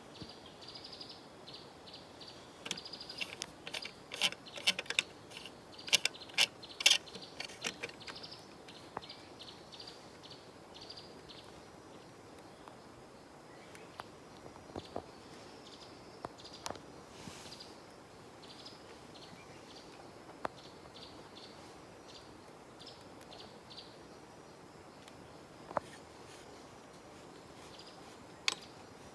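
Small birds chirping in the forest in quick runs of short, high, evenly spaced notes. A cluster of sharp clicks and knocks sounds a few seconds in.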